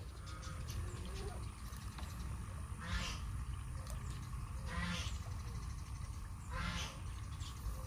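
An animal calling repeatedly: three short calls about two seconds apart, over a steady low background.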